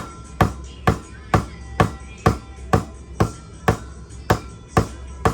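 Hammer blows on a 2x4 block, driving a pump or motor part onto its new bearing, struck steadily at about two a second.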